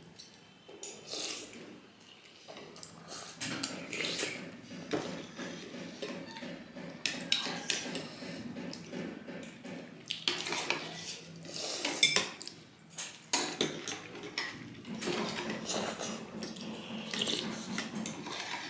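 Metal forks and spoons clinking and scraping against ceramic soup bowls, in many short irregular clicks, with bursts of noodle-soup slurping.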